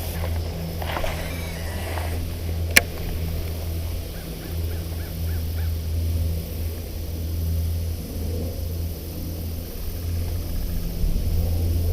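Outdoor ambience with a steady low hum, bird calls about half a second to two seconds in, and a short run of about six quick chirps between four and five seconds in. A single sharp click comes a little under three seconds in.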